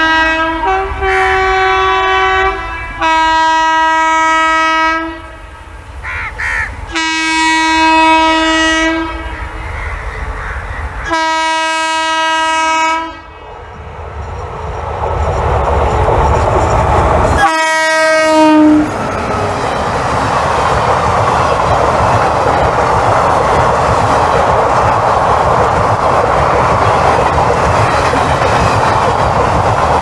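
WAP-4 electric locomotive horn sounding a series of long blasts on approach, then a shorter blast about 18 seconds in that drops in pitch as the locomotive passes. After that, the steady rumble and clickety-clack of the passenger coaches' wheels running past on the track.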